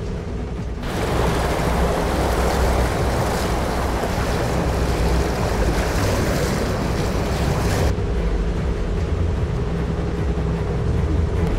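Pickup truck engine running steadily while driving a gravel road, under a loud rushing noise of whitewater rapids that starts about a second in and falls away about eight seconds in.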